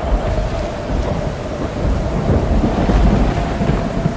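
Thunderstorm: steady rain with a deep rolling thunder rumble that swells about halfway through.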